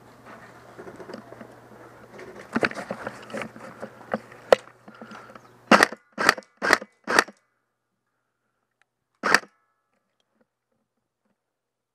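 MP5-style airsoft gun fired in four quick short bursts about half a second apart, then one more a couple of seconds later. Before the shots there is gear rustling and footsteps on dirt.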